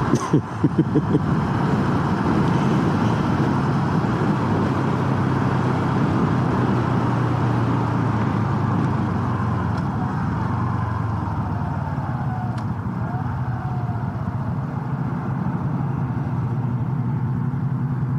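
Honda Super Cub C125's single-cylinder engine running steadily while riding, mixed with wind and road noise.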